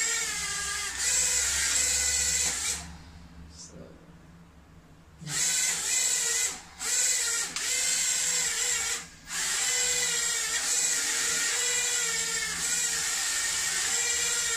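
Eachine E015 toy quadcopter's small motors whining at high speed as its propellers push it across shallow water in boat mode, the pitch wavering as the throttle changes. The motors cut out for about two seconds a few seconds in, and twice more for a moment, before running on.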